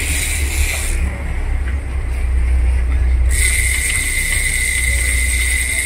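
Steady low rumble of the sportfishing boat under way. About three seconds in, a steady high-pitched whine sets in and holds.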